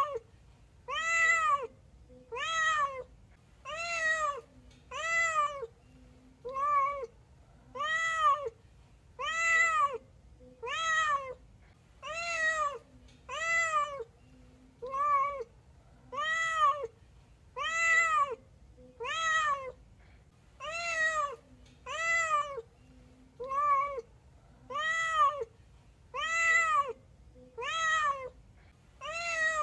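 Domestic cat meowing over and over at an even pace, one meow a little under every second and a half. Each meow rises and then falls in pitch.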